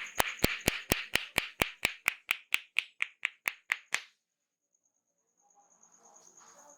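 Hands clapping in a rapid, even massage rhythm, about four or five claps a second, fading slightly. The clapping cuts off abruptly about four seconds in.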